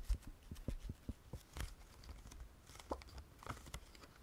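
Soft handling noises from thin plastic phone film cases: scattered light taps, clicks and low thumps with faint rustling as a case is lifted and set aside, a few more of them near the start.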